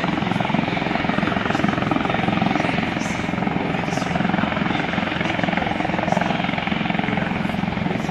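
Eurocopter Tiger attack helicopter's twin turboshaft engines and rotors running, a steady, loud helicopter noise with no letup.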